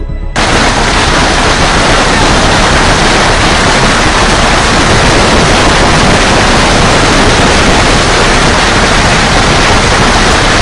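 Torrential storm rain pounding down, a loud, even roar with no break. It starts abruptly just after the beginning and cuts off suddenly at the end.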